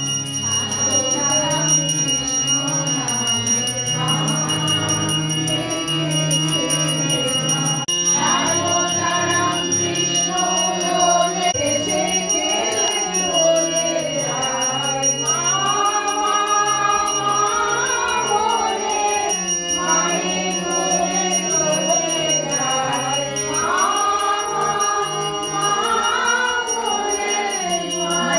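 Devotional aarti singing by a group with harmonium accompaniment, over a hand bell rung without a break.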